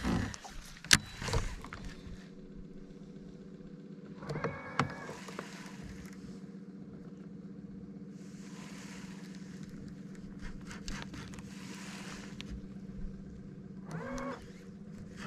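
Bow-mounted electric trolling motor humming steadily, with a sharp click about a second in and a few soft stretches of hiss.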